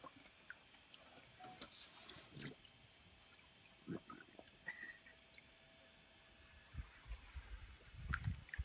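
Steady high-pitched buzzing of insects in dry bush, with a few faint soft knocks and water sounds scattered through it.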